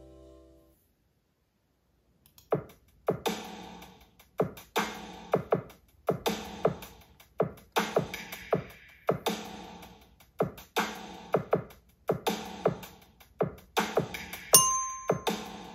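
A steady beat of dry percussive clicks and knocks, about two a second, with no ringing pitch. About a second before the end, the metal bars of a children's eight-note glockenspiel are struck with a mallet, ringing clear high notes.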